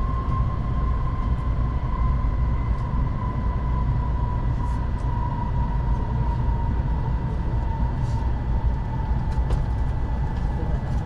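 Cabin running noise of a Kamome Shinkansen train (N700S) at speed: a steady low rumble from wheels and track, with a thin whine on top that drifts slightly lower in pitch.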